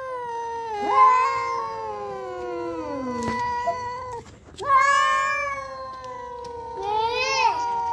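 Two domestic cats yowling at each other in a standoff: long, drawn-out, wavering yowls, one after another, the threat calls of rival cats squaring off over a female.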